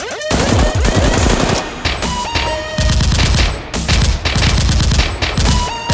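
Rapid volleys of dubbed-in automatic gunfire sound effects, fired in bursts, over a thudding electronic music beat.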